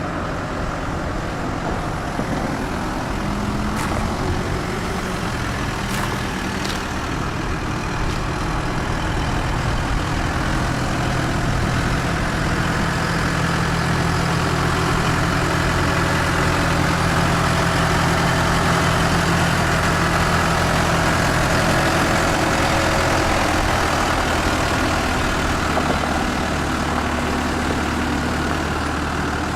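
Diesel engine of a Case 580M2 loader backhoe running steadily. It gets a little louder through the middle stretch and drops back near the end.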